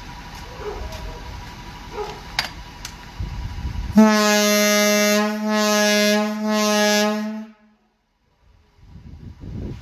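Firehouse air horn, over 60 years old, sounding one steady blast of about three and a half seconds, starting about four seconds in: a single low, unwavering tone with many overtones.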